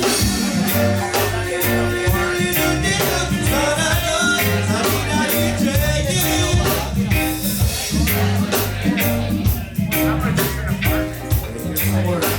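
Reggae band playing live at a sound check: a singer over a bass line and drums keeping a steady beat.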